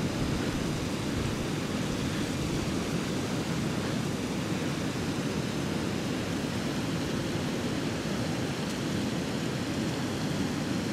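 A steady, even rushing noise with no breaks or separate sounds, heaviest in the low range.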